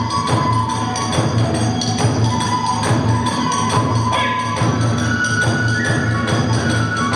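Kagura music: drums and small hand cymbals beating a fast, steady rhythm, with a flute line held and sliding above it.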